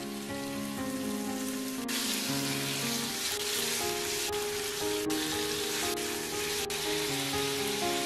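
Chicken thigh pieces sizzling in hot oil in a nonstick frying pan; the sizzle grows louder about two seconds in as the pieces are spread out, with a few light ticks from the silicone spatula. Soft background music plays throughout.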